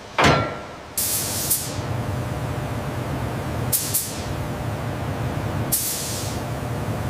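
A thump just after the start, then a robotic spray gun hissing steadily as it applies spray-on bedliner into a pickup bed, over a low rumble, with sharper bursts of hiss about every two seconds.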